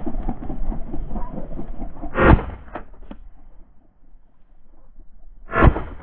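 Two shotgun shots about three seconds apart, each followed by a couple of faint knocks. Under the first shot a rushing, rustling noise fades out.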